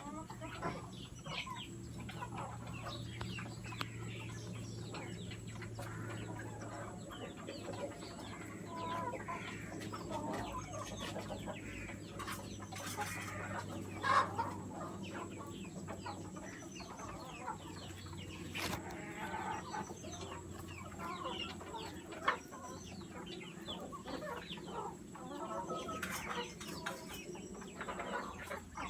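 Chickens clucking and calling continuously, many short overlapping calls, with a couple of brief louder sounds about fourteen and twenty-two seconds in.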